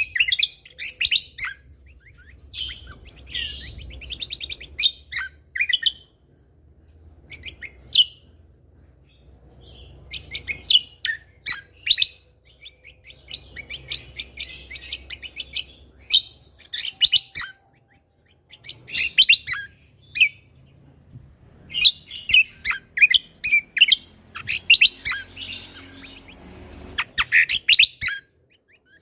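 Cucak kombo (kecial kombo) songbird singing energetically in bursts of rapid, high chirps and trills, with short pauses between phrases.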